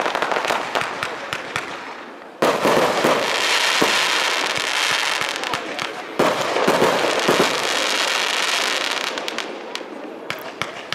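Aerial fireworks going off: two loud bursts, about two and a half and six seconds in, each followed by several seconds of dense crackling and popping that slowly fades.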